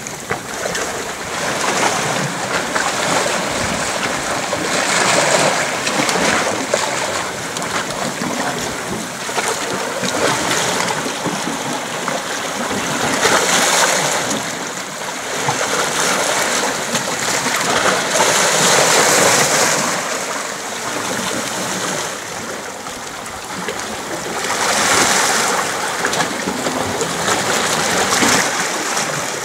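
Small sea waves washing against a rocky shore: a steady rush of water that swells and eases every few seconds.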